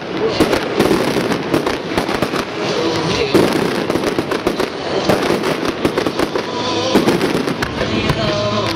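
Fireworks display: aerial shells bursting in a dense, unbroken run of bangs and crackles.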